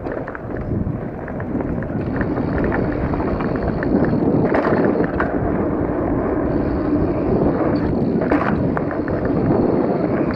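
Wind rushing over the microphone mixed with mountain bike tyres rolling on a dirt trail and the bike rattling. It builds over the first two seconds as speed picks up, with a few sharp clacks from the bike along the way.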